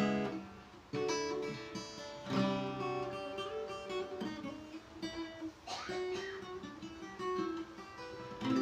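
D&D Django Jr. mahogany acoustic guitar being played: a few strummed chords, then picked single notes and chords, with another strum near the end. The tone is crispy, smooth and clear.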